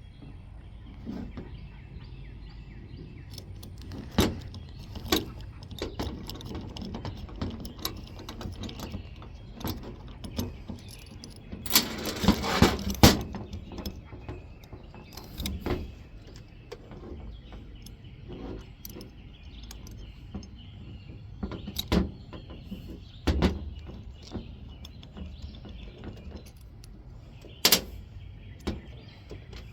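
Scattered metal clicks, clinks and taps of hand tools and small screws as the screws holding the two halves of a Ford 8N carburetor are taken out. There is a louder run of clatter about twelve seconds in, over a steady low background rumble.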